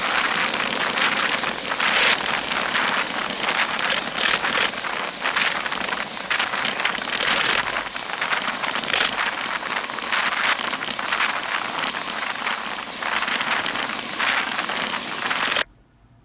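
Wind rushing over the microphone of a bicycle-mounted camera while riding at speed: a dense hiss with frequent irregular gusty surges. It cuts off suddenly near the end.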